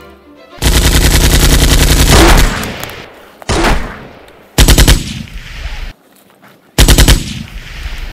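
Automatic rifle fire: one long burst of about two seconds, a single shorter report, then two short bursts about two seconds apart, each trailing off in echo.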